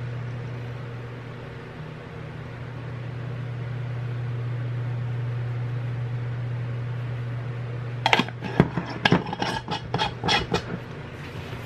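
A steady low hum throughout, and about eight seconds in a quick run of clicks and knocks as plastic spice containers are handled on the table, lasting a couple of seconds.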